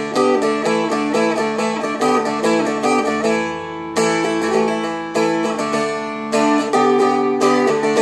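Seagull Merlin M4, a four-string strumstick, strummed in quick, even strokes, changing chords about every second or two: practice changes between the beginner D, A and G chords.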